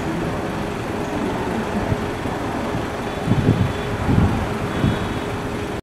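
Steady outdoor rumble of road traffic, with a few low thumps from about three seconds in.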